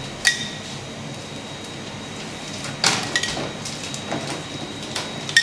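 Metal spoon clinking against a small copper saucepan while sauce is spooned out: a few sharp clinks, several with a brief metallic ring, over a steady background hum.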